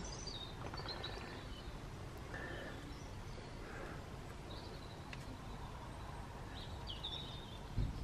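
Quiet outdoor background with a few faint, short bird chirps, and a short low thump just before the end.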